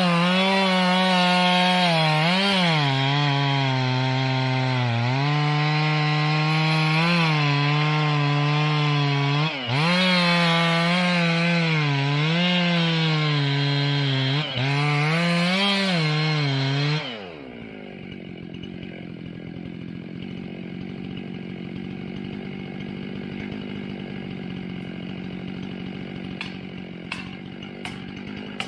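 Old gas chainsaw at full throttle cutting into wood, its pitch sagging and recovering as the chain loads up in the cut, with a couple of brief dips. About two-thirds of the way through it drops back to a quieter idle, with a few sharp clicks near the end.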